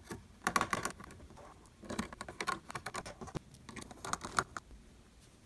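Small Phillips precision screwdriver driving screws through a circuit board into its standoffs: light clicking and scratching in four short clusters.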